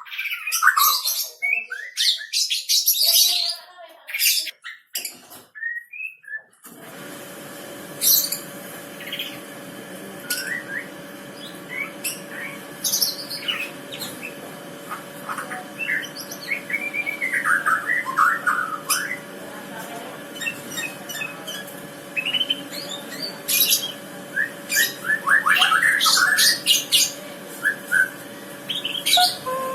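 White-rumped shama singing: quick high chattering and whistled phrases, some sliding down in pitch, with short gaps between them. From about seven seconds in, a steady hum lies under the song.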